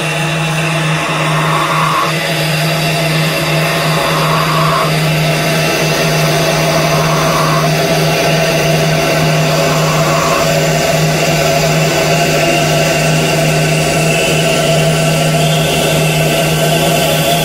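Dark ambient drone music from a horror film score: a steady low hum under a dense hiss, with a swelling tone that pulses about every three seconds and stops about ten seconds in.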